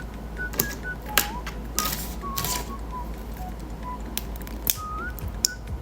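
Scattered sharp clicks and crackles of grape-shaped candy being handled and eaten up close, over faint background music with a whistled tune.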